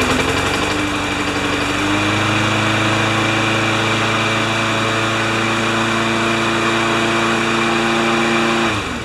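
Briggs & Stratton Quantum single-cylinder engine on a Craftsman 6.5 HP push mower running steadily at speed, settling up to speed in the first half second. It shuts off near the end, the note dropping as it winds down.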